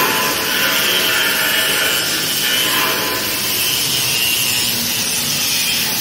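Handheld angle grinder grinding the edge of a steel beam: a steady, loud grinding whose pitch wavers slightly as the disc bears on the metal.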